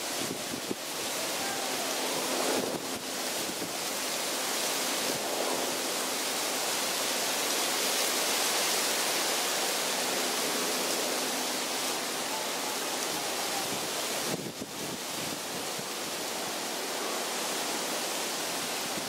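Strong hurricane wind rushing through coconut palm fronds: a steady, dense noise that swells toward the middle and eases briefly about three quarters of the way through.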